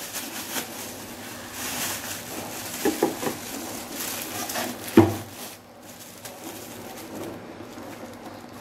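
Thin plastic bags rustling and crinkling as speaker units are pulled out of their wrapping. A single sharp knock comes about five seconds in.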